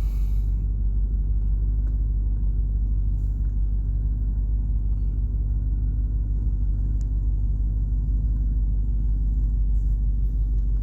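1995 Range Rover P38's V8 engine running steadily shortly after a cold start, a low, even rumble, as the car is moved at low speed.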